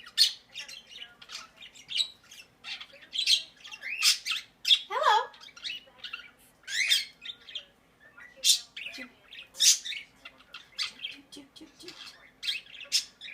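Quaker parrot (monk parakeet) giving a rapid run of short, shrill squawks and chirps, with one falling call about five seconds in.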